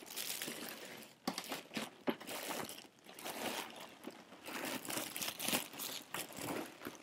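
Packaging crinkling and rustling while it is handled, in irregular bursts with a few light knocks and clicks.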